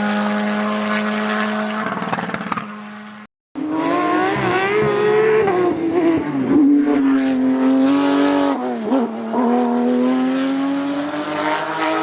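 A steady engine drone, then an abrupt cut to a rally car engine at full throttle. Its pitch climbs and drops back sharply several times as it shifts gear and lifts off, then climbs again near the end.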